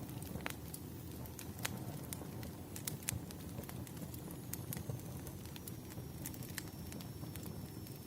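Wood fire crackling: irregular sharp pops and snaps over the low, steady rush of the burning logs.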